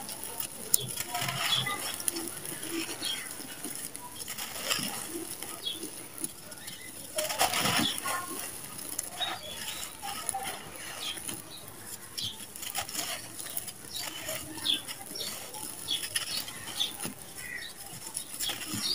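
Dry red sand-cement chunks crumbling and fine dusty sand sifting through hands: many small gritty crackles and rustles, with a louder stretch of crumbling about seven seconds in.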